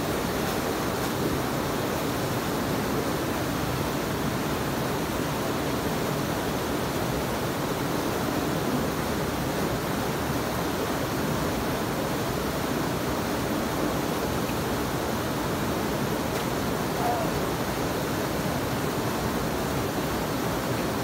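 Small waterfall pouring into a rocky plunge pool: a steady rush of white water.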